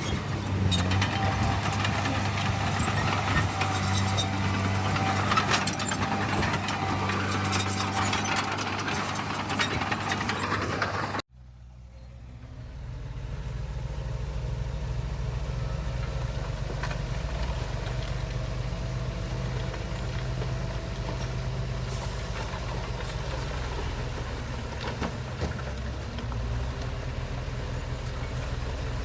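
Diesel engines of heavy earthmoving machines running, with clanks and knocks over a steady engine note. A sudden cut about a third of the way in leaves a lower, steady engine rumble.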